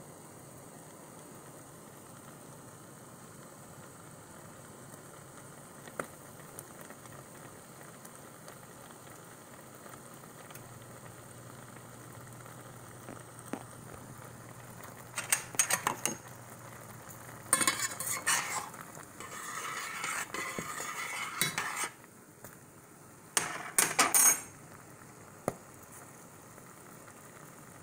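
Cranberries simmering in a stainless steel pot, a faint steady bubbling and sizzle with an occasional single pop as a berry skin bursts. From about halfway come three loud spells of a utensil clinking and scraping against the pot as the berries are stirred.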